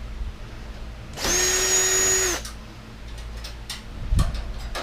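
Power drill-driver running steadily for about a second, backing out a screw, followed by a few light clicks and a low thump of metal parts being handled.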